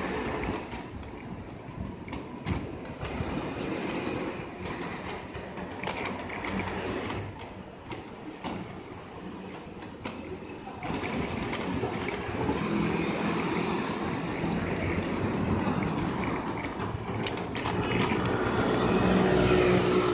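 City street noise heard from a bicycle: a steady wash of traffic with scattered clicks and knocks, growing louder about halfway through.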